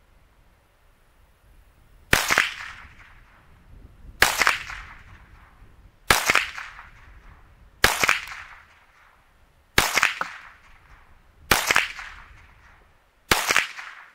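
Seven shots from a semi-automatic .22 LR takedown rifle, fired at a steady pace about two seconds apart. Each is a sharp crack with a short tail.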